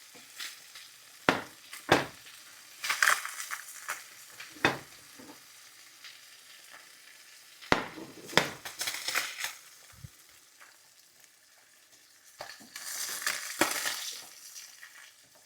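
Hot olive oil sizzling softly in a skillet as cooked haddock fillets are lifted out, with sharp taps and short scrapes of a utensil against the pan, in clusters about one to three seconds in, around five seconds, at eight to nine seconds and again near the end.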